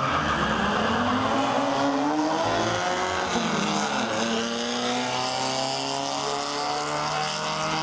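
VW Beetle drag car's engine at full throttle as it launches down the drag strip. The pitch climbs, drops sharply about halfway through at a gear change, and then climbs again.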